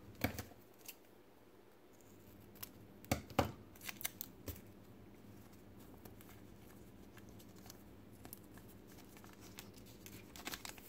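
Small clear plastic packaging bag crinkling and tearing as a thin servo cable is pulled out of it: a few sharp crackles at the start, a cluster about three to four seconds in and another near the end, with faint rustling in between.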